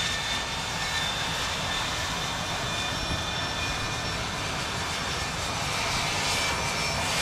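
Two Aero L-39 Albatros jet trainers taxiing, their turbofan engines giving a steady rushing noise with a thin, steady high whine over it.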